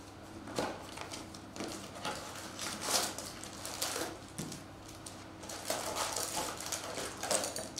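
Cardboard trading-card box being opened by hand and its stack of foil-wrapped card packs pulled out and set down: irregular rustling and crinkling with light knocks, loudest about three seconds in.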